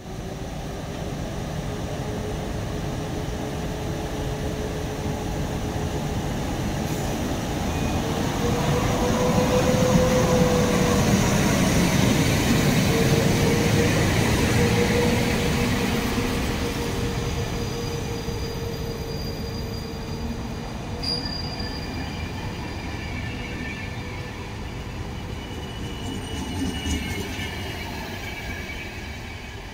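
PKP Intercity EP09 electric locomotive and its passenger coaches rolling past along a station platform. A steady hum over the rumble of the train grows loudest about ten to fifteen seconds in as the locomotive goes by. Near the end, as the coaches pass, thin high squeals come in.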